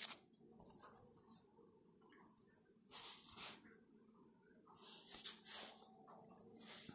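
A cricket trilling: a steady high-pitched pulsing, about ten pulses a second.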